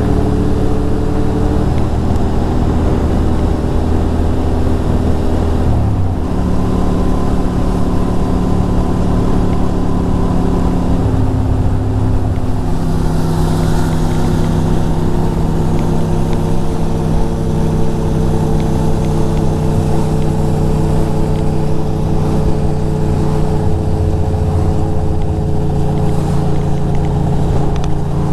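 2006 Ducati Monster 620's air-cooled L-twin running steadily while riding. Its pitch steps a few times, about six seconds in and again around eleven to thirteen seconds in.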